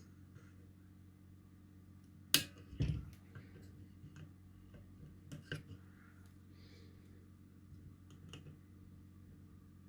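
A few sharp clicks and a duller knock, loudest about two and a half seconds in, from small tools and parts being handled on an electronics workbench, over a low steady hum.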